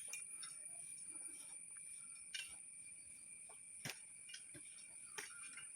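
Faint, steady, high-pitched insect buzz, with three sharp clicks scattered through.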